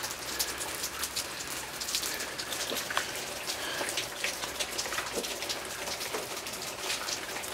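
Light rain pattering: a steady, irregular scatter of small drop ticks.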